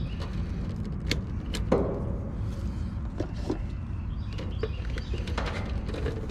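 A zip tie on the condenser wiring snipped with diagonal cutters, then light clicks and rustles as the fan motor wires and tools are handled, scattered over a steady low rumble.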